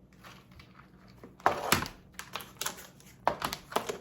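Irregular sharp clicks and clatter of hard objects being handled on a table, starting about a second and a half in, with the loudest knock at the start of the run.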